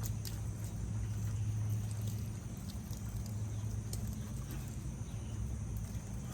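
An engine running steadily with a low, even hum, with a faint high steady hiss above it.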